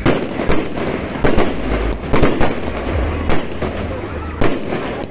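Fireworks display: a rapid series of sharp bangs from bursting shells, roughly two a second, over a continuous low rumble.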